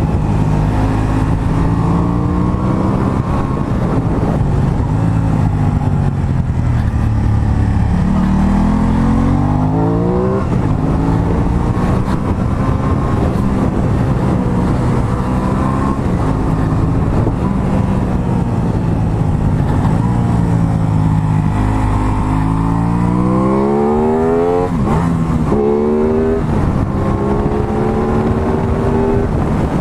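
Aprilia Tuono 660's parallel-twin engine under way, its revs rising and falling through the gears. Twice it is wound up hard, the pitch climbing steeply before dropping at a gear change, over a steady low rush of wind.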